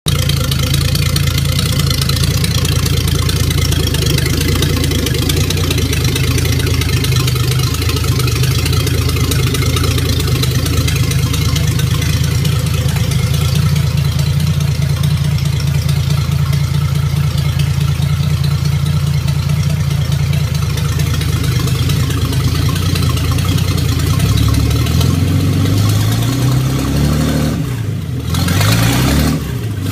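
Freshly rebuilt 1956 Dodge 230 cubic inch flathead straight-six running at a steady idle, then revved up and down a few times near the end.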